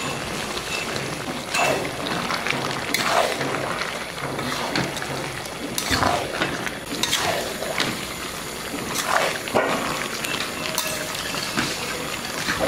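Spatula stirring and scraping through a pan of thick vegetable and fish-head curry, in irregular strokes a second or two apart, over the steady bubbling of the simmering curry.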